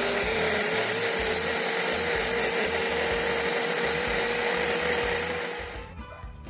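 Countertop personal blender running at full speed, pureeing red bell pepper, chilies and spices into a smooth peri-peri paste. A steady motor whine that rises a little in pitch over the first couple of seconds, then holds, and stops near the end.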